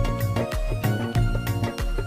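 Background music with a steady, upbeat dance rhythm: bass and percussion strokes about three times a second under held melody notes.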